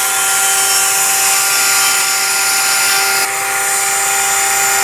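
Table-mounted router with a flush-trim bit running at full speed, trimming overhanging iron-on edge banding flush on plywood drawer parts. The cutting noise stops about three seconds in and the motor runs on with a steady whine.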